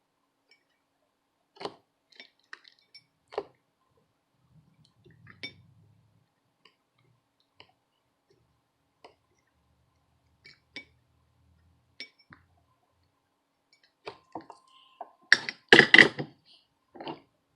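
Light clicks and clinks of small tools being handled and set down on a workbench, scattered every second or two, with a louder burst of clattering about fifteen seconds in.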